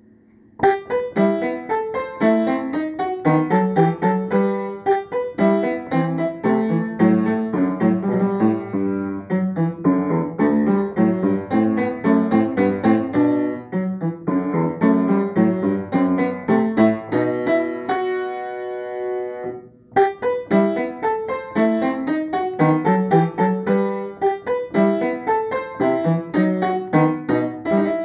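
Upright piano playing a short beginner piece of quick, detached notes and chords. About two-thirds through, a chord is held and left to die away, then after a brief break the playing resumes.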